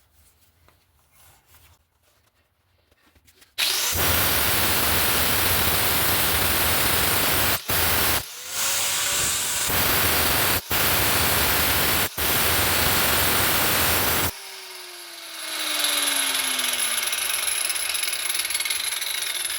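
Angle grinder with an abrasive cutoff wheel cutting through the steel knife blank, starting about three and a half seconds in and running loudly for about ten seconds with a few very short breaks. It then stops and spins down with a falling whine.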